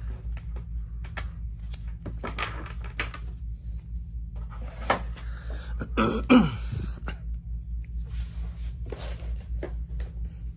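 Trading cards, cardboard boxes and plastic card holders being handled on a table: light rustles and clicks over a steady low hum, with one louder noise about six seconds in.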